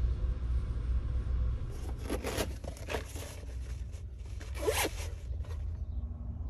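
A zipper pulled in a series of short zips from about two seconds in, the loudest near five seconds, over a steady low rumble.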